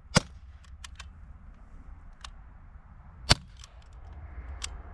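Two air gun shots about three seconds apart, with a few fainter clicks between and after them.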